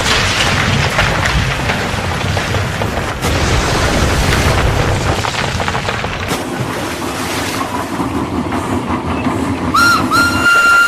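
Film train sound effects: a loud bang at the very start, then heavy rumbling and clatter of engines running, with a low steady drone joining about six seconds in. A steam whistle blows in the last second.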